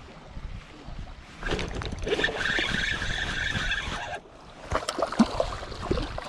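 A spinning fishing reel being cranked with a steady whir, then splashing and knocks at the water's edge as a small fish is pulled in.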